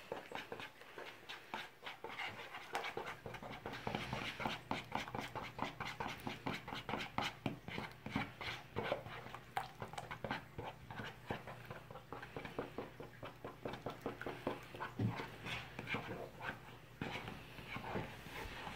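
Plastic spatula stirring batter in a plastic mixing bowl: quick, repeated scraping strokes.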